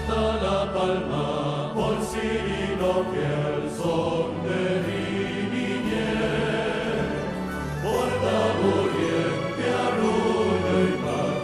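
Male folk choir singing a Canarian Christmas carol (villancico), backed by a symphony orchestra.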